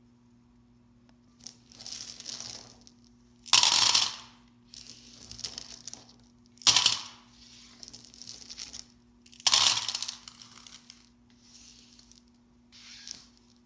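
Mike and Ike gummy candies rattling and clattering in their packaging as it is handled, with some crinkling. The sound comes in about eight bursts, the loudest about four, seven and ten seconds in.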